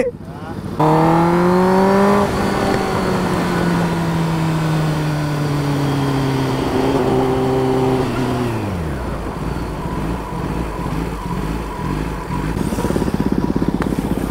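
Kawasaki ZX10R inline-four engine running at steady revs that sag slowly as the bike descends the hill. A little past the middle the revs fall away sharply, leaving a low rumble.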